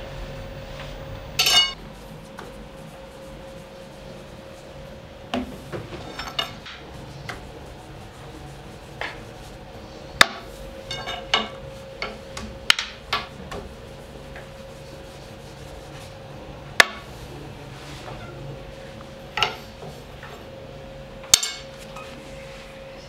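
Sharp knocks and clinks of bakery tools and utensils being handled and set down, about a dozen at irregular intervals, over a steady hum.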